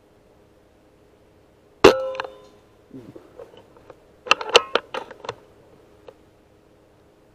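A sharp air-rifle shot with a brief metallic ring about two seconds in. A little past four seconds comes a quick run of metallic clicks and clinks lasting about a second.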